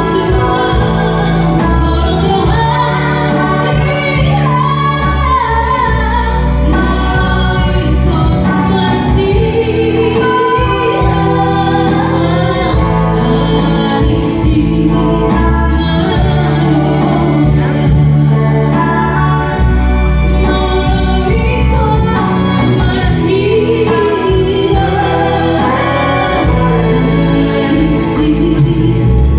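A woman singing a slow Batak Toba song into a microphone, her amplified voice carried over electronic keyboard accompaniment with sustained bass and chords.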